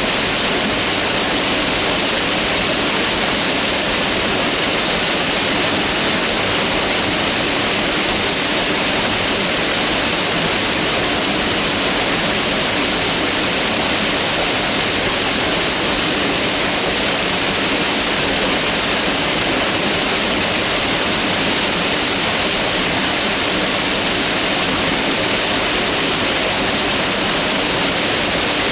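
Mountain river water rushing steadily over rocks, a constant loud rush without breaks.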